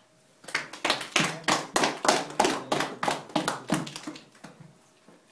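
Hand clapping from a few people, a quick even run of claps about five a second that starts about half a second in and dies away after some four seconds.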